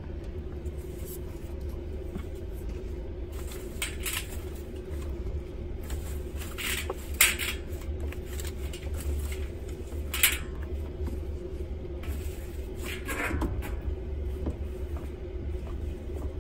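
Damp cloth diapers being pulled out of a Maytag Bravos XL top-loading washer's stainless drum after the wash cycle: a handful of brief rustles and knocks against the drum over a steady low hum.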